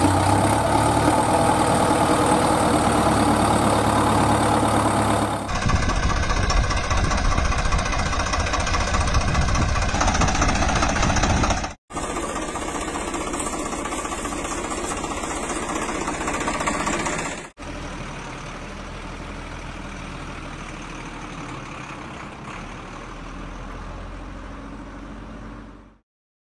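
Engine running and idling, in several segments that change abruptly at edits about six, twelve and eighteen seconds in; the last segment is quieter.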